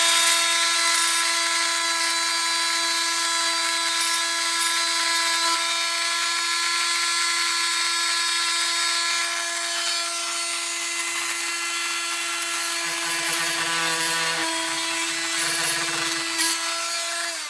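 Small handheld electric power tool running at a steady high-speed whine while smoothing a rough spot on a plastic motorcycle airbox. Its pitch sags a little with added rumble between about 13 and 16 seconds as it is pressed into the work, then it winds down at the end.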